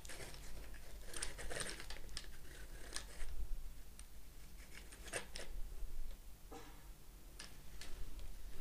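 Light clicks and small rattles of hands adjusting the handlebar and stem of a Baolida 20-inch folding bicycle: a quick cluster of clicks about a second in, then single clicks every second or so.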